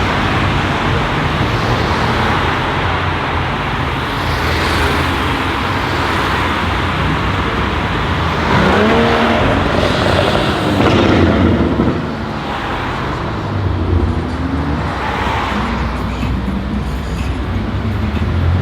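Straight-piped BMW M5 F90 Competition's twin-turbo V8 running at idle, its pitch rising and falling briefly about halfway through.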